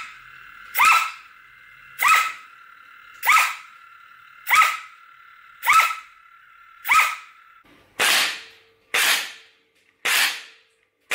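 Diana compact flywheel foam-dart pistol firing about once every 1.2 seconds, its two brushless flywheels whining steadily between shots; each shot is a sharp crack with a quick dip in the whine. After the seventh shot the whine stops and a second blaster fires sharp cracks about a second apart, with no whine between them.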